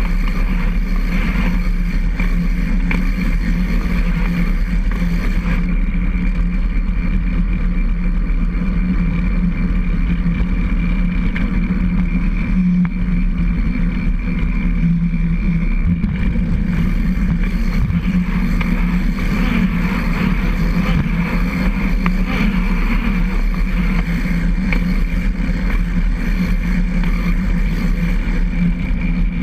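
Steady running noise of a recumbent trike rolling along a concrete trail, picked up by a camera mounted on its front boom: a constant low drone and rumble with a thin steady tone above it, unchanging throughout.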